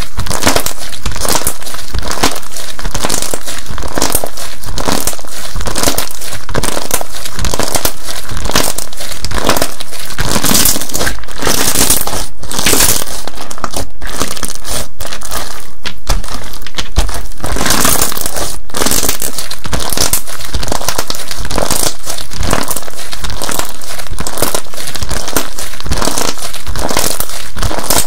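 Cocomo Slime's 'Hot Choco Milk Block' slime being squeezed and kneaded by hand, giving a dense, continuous crackling and crinkling with a few brief pauses.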